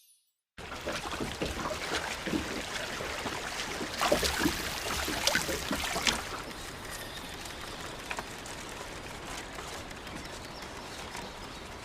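Rain falling with scattered drips and splashes, louder for the first several seconds, then steadier and softer.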